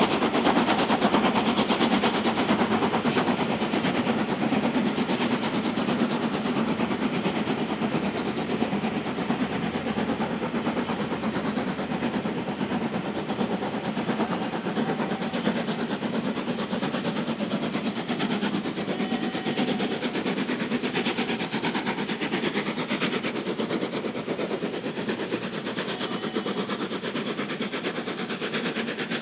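Steam locomotive working hard up a steep gradient: a rapid, continuous beat of exhaust, easing slightly in loudness toward the end.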